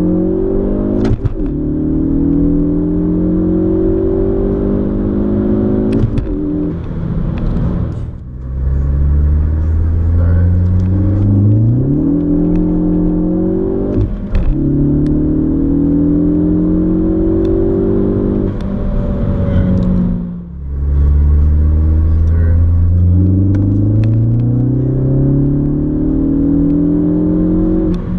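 2013 Ford Focus ST's turbocharged 2.0-litre four-cylinder, with an MBRP cat-back exhaust and Cobb intake, heard from inside the cabin accelerating hard through the gears. The engine note climbs steadily in pitch and breaks off sharply at each upshift, five times. It eases briefly twice, about eight and twenty seconds in, before pulling again.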